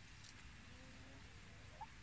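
Near silence: faint outdoor ambience, with one very brief soft chirp near the end.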